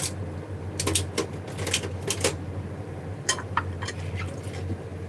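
Irregular sharp clicks and light clatter of kitchen things being handled, over a steady low hum.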